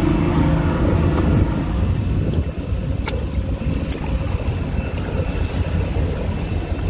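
Steady rumble of a boat at sea with wind on the microphone, a little louder for the first second and a half.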